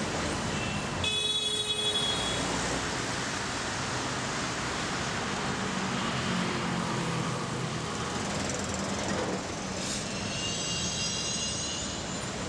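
Steady city road traffic noise. Vehicle horns honk briefly about a second in, and again for a couple of seconds near the end.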